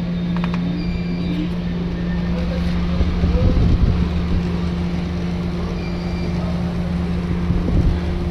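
Electric motor humming steadily with a strong low electrical tone, the sound of a unit with a bad capacitor. A low rumble swells briefly about midway and again near the end.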